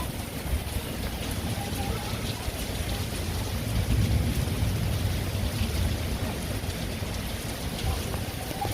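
Heavy rain pouring steadily in a thunderstorm, with wind blowing through the trees and a deep rumble that swells about four seconds in.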